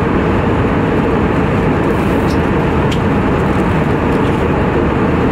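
Steady cabin noise of an Airbus A320-200 airliner in flight, a constant roar of airflow and engines heard from inside the cabin, with a faint steady hum under it.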